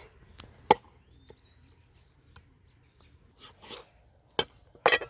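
Meat cleaver chopping raw pig's leg on a round wooden chopping block: several sharp chops at uneven intervals, the two hardest close together near the end.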